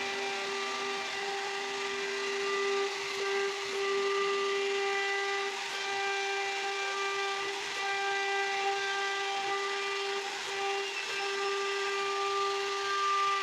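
CNC router spindle running with a steady high-pitched whine over a hiss as its bit cuts wood, the higher overtones of the whine coming and going as the cut goes on.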